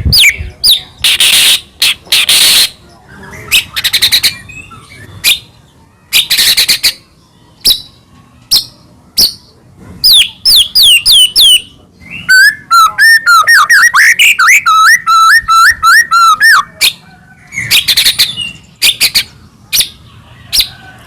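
White-rumped shama (murai batu) singing a loud, varied song without pause: quick sharp falling whistles and harsh rasping notes, with a long rapid warbling trill in the middle.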